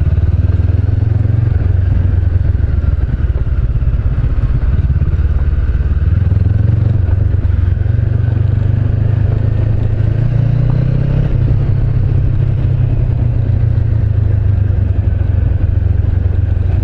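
Honda CB500X parallel-twin engine running under way through a Staintune exhaust, a steady low drone that rises a little in pitch about ten seconds in.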